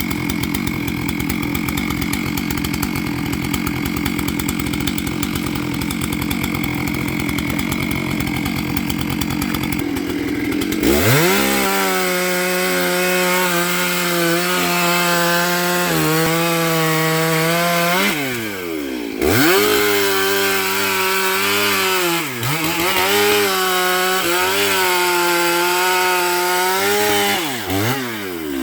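Two-stroke chainsaw running at a low, rapid pulsing for about ten seconds, then opened up to full throttle and cutting wood. Its pitch sags and recovers again and again as the chain bites, with brief drops off the throttle twice.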